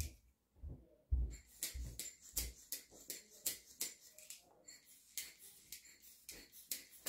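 Quick repeated clicking puffs, about three a second, from a hair-building-fibre bottle's applicator nozzle pressed again and again to puff fibres onto the scalp. A few soft low thumps come in the first two seconds or so.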